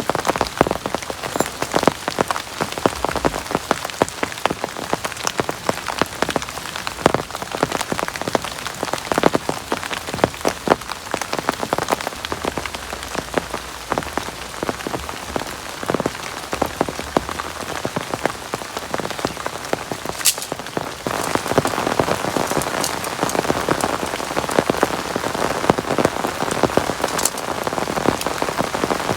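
Heavy rain falling, with many separate drops striking a surface. About two-thirds of the way in, the rain becomes denser and steadier.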